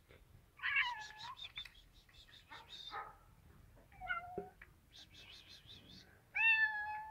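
Stray cats meowing: four meows, short ones in the first half and a longer, louder, drawn-out one near the end. A fast, high-pitched ticking comes and goes between the meows.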